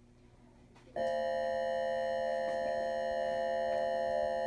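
A school's electronic class bell sounding one steady, many-pitched tone that comes on suddenly about a second in and holds without wavering.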